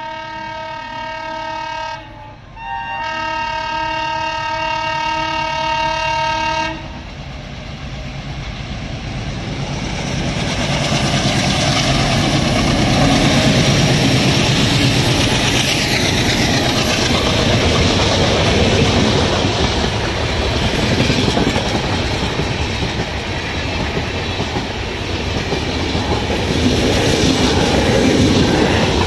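Twin ALCO diesel locomotives of an Indian Railways express sound their horn: one blast, a short break, then a longer second blast that ends about seven seconds in. The locomotives' diesel engines then come past at speed, loudest about halfway, followed by the steady rumble of the passenger coaches' wheels on the rails.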